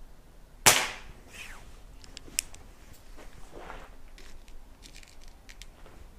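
Reximex Mito PCP air pistol firing a single shot: a sharp crack about half a second in that quickly dies away. A sharp click follows a couple of seconds later, then several light clicks.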